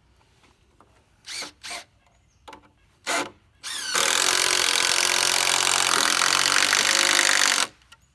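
A few light knocks, then a power drill spins up and runs steadily for about three and a half seconds, driving a TimberLOK structural screw into a wooden rafter joint, and stops abruptly.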